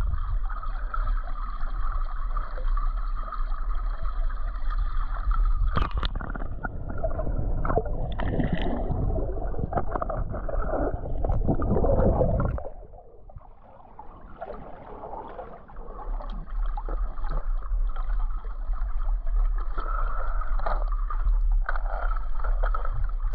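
Water sloshing and gurgling, with a few sharp knocks, easing off for a couple of seconds about halfway through.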